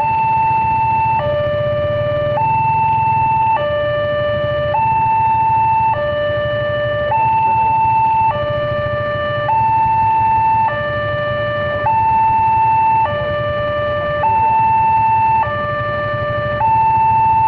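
Railway level crossing warning alarm sounding for an approaching train: an electronic two-tone signal switching between a higher and a lower note about every second. Motorcycle engines idle underneath.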